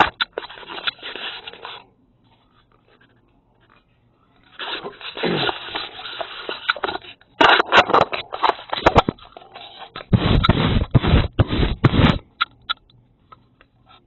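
Handling noise picked up by a doorbell camera's own microphone as the camera is held and moved: bursts of scraping and rubbing with knocks, heaviest a couple of seconds before the end.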